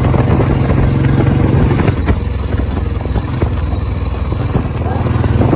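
Single-cylinder engine of a 2003 Royal Enfield Bullet running under way, a steady rapid thumping beat. The engine note eases off slightly about two seconds in and builds again near the end.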